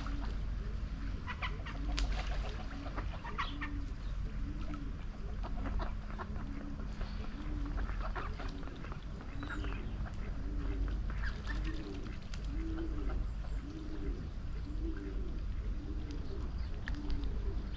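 A fowl calling over and over: short, low calls that rise and fall, about every two-thirds of a second, coming closer together towards the end. Scattered higher chirps sound above them, over a steady low rumble.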